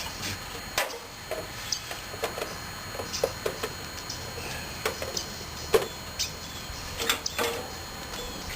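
Irregular light clicks and clinks of small metal parts and tools being handled.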